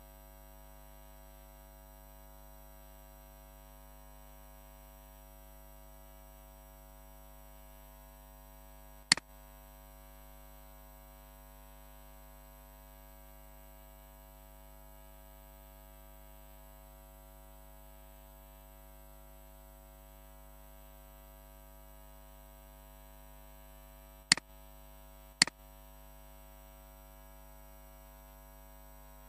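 Steady electrical mains hum made of several constant tones. Three sharp clicks cut through it: one about a third of the way in, and two a second apart near the end.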